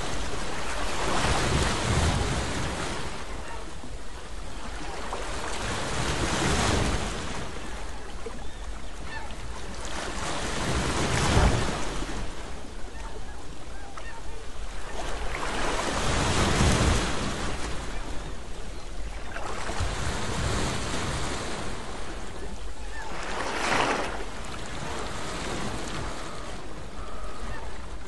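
Wind buffeting the microphone over the rush of water around a moving boat, swelling and easing every few seconds.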